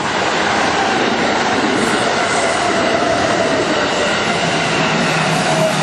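Electric commuter train passing a level crossing at speed, its wheels on the rails and its motors making a loud steady rush, with a faint whine that slides slightly lower in pitch as it goes by.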